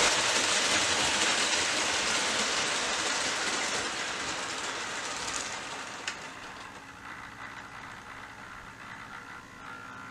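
HO-scale Bachmann GS-4 Daylight model locomotive and its train running on the track, wheels and motor making a steady rushing rumble that fades as it slows to a stop. A single sharp click about six seconds in.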